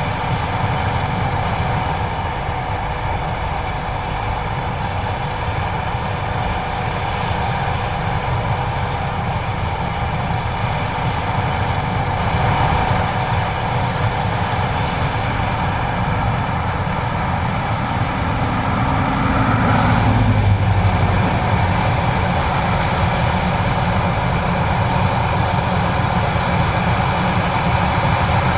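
John Deere 9570STS combine harvester running steadily, a constant deep drone with mechanical noise. The sound swells briefly about twenty seconds in.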